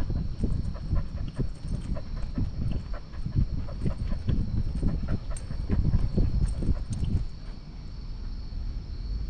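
Husky on the move, heard through a camera worn by the dog: a rhythmic run of thuds and breathing from its gait, about three to four a second, easing off about seven seconds in.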